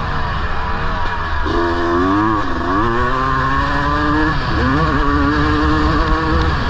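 Honda CR250R two-stroke motocross engine revving hard, its pitch climbing, then dropping sharply twice (shifts or throttle chops) and climbing again, over heavy rumbling wind noise.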